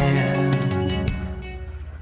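Background pop music: a held instrumental chord with guitar and drums that fades down through the gap between sung lines.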